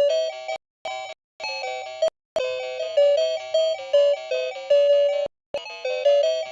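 Bright electronic chime tunes, doorbell-like notes played quickly in short phrases, each phrase cut off by a brief silence.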